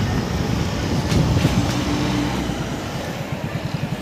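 Motorcycle engine running at low speed with a rapid, even beat, over road and wind noise; the beat grows clearer near the end.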